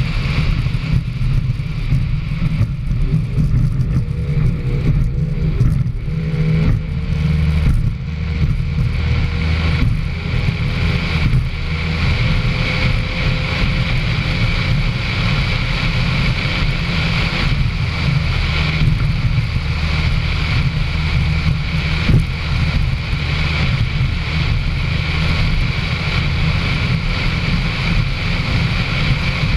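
Racing powerboat's engine running hard at speed, heard on board together with the rush of wind and water. The engine note wavers up and down about three to seven seconds in, then settles and slowly climbs.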